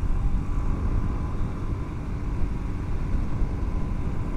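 Suzuki DR-Z400's single-cylinder four-stroke engine running steadily while riding, with a heavy low rumble of wind on the microphone and the new Shinko SR241 tires running quietly.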